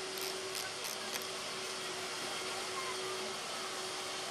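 Škoda 498.1 'Albatros' steam locomotive, in steam on a turning turntable: a steady hiss of steam with an even hum underneath, and a few faint ticks in the first second or so.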